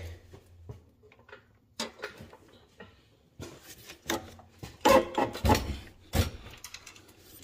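A jack being worked to raise the transmission against the engine, making a string of irregular knocks and short scraping clunks, loudest about five to six seconds in.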